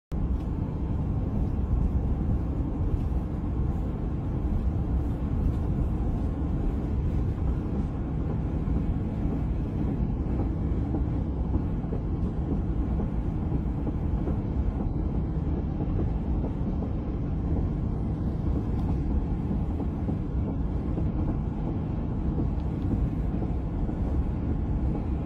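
Steady low rumble of a moving car, heard from inside: road and engine noise with no break or change.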